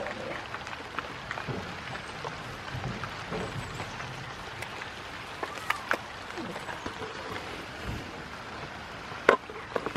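Rain falling: a steady patter with scattered sharper drop ticks, one louder tick near the end.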